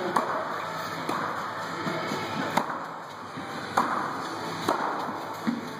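Tennis rackets hitting balls, sharp hits about once a second, over background music.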